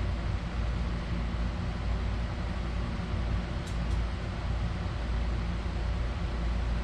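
Steady low mechanical hum with an even rush of noise, as from a shop fan or heater running, with a couple of faint ticks just past halfway.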